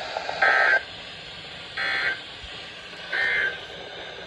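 NOAA Weather Radio SAME end-of-message data bursts: three short, harsh digital screeches about a second and a half apart, marking the end of the severe thunderstorm warning broadcast. Faint radio hiss sits underneath.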